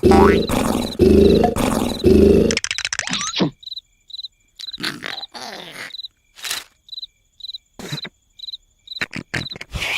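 Loud, rasping snoring that stops about two and a half seconds in. Crickets then chirp steadily, about two chirps a second, with a few short scattered noises.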